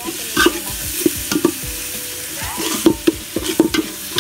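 Flat metal ladle scraping and knocking against the inside of an aluminium pot in irregular strokes. It is stirring onions, ginger and garlic frying in oil, with a frying sizzle underneath.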